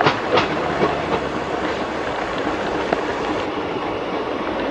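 Utkal Express passenger coaches running on a curve, heard from an open coach doorway: a steady rush of wheels on rails with a few sharp rail clicks, mostly in the first second.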